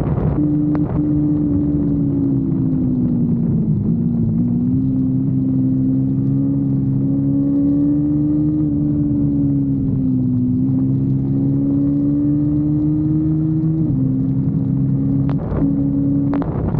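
Kawasaki Versys-X 250's parallel-twin engine running at a steady high pitch under way. The revs sag and pick back up twice, about four and ten seconds in, then drop suddenly near the end.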